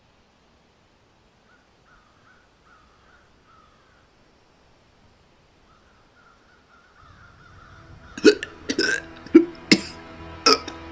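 Almost quiet at first, then a low drone fades in about seven seconds in. Near the end come five short, sharp gasping vocal sounds in quick succession, from a wounded animal character.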